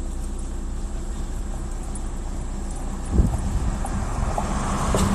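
Steady low rumble of a car heard from inside the cabin, with a single knock about three seconds in and a swelling hiss near the end.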